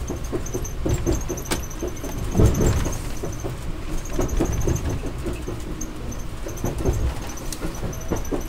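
An Amtrak Keystone Service train heard from inside the coach while it runs: a steady low rumble of wheels on rail, with frequent irregular clicks and knocks and faint high squeaks from the car.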